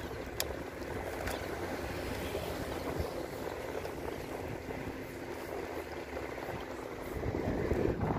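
Steady noise of wind and sea water lapping against shore rocks, with a faint steady hum under it that stops near the end.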